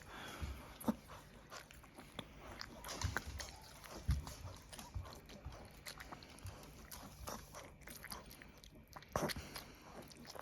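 A paralysed dog's mouth sounds while being fed from a syringe: irregular wet clicks and smacks of chewing, biting and swallowing.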